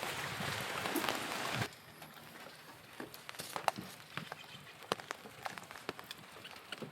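A steady hiss that cuts off suddenly under two seconds in, followed by scattered light clicks and taps of entry tools against the van door.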